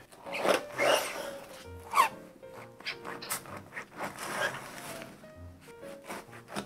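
Knife sawing through a crusty baguette on a wooden cutting board, in several short scraping strokes, over light background music.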